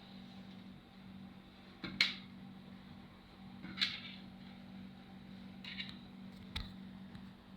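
A few brief knocks and clatters as the LED TV's plastic back cover is handled and fitted back on, the sharpest about two seconds in, over a steady low hum.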